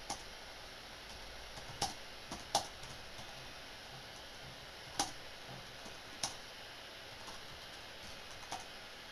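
Slow typing on a computer keyboard: a handful of separate keystroke clicks at irregular intervals over a steady hiss.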